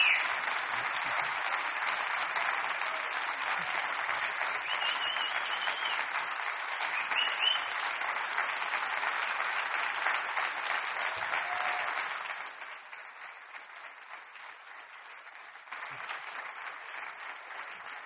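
Audience applauding, thinning to quieter scattered clapping about twelve seconds in and picking up slightly again near the end.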